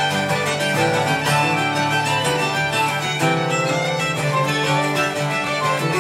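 Irish traditional jig played live by uilleann pipes, fiddle, bouzouki and guitar together, the tune carried over a steady low drone.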